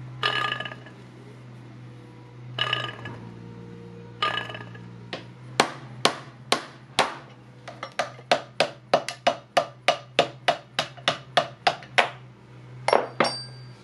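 Hammer blows on a steel drift punch, driving the old bearing out of the hub of a band saw wheel. A few separate ringing metallic strikes come first, then a quick run of sharp blows at about two to three a second, with two last strikes near the end. A steady low hum runs under them.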